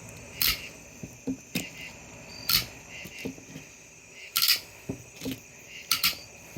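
Tin snips cutting through the hard, bony armor-scale shell of a longnose gar: a series of sharp, irregularly spaced snips and crunches.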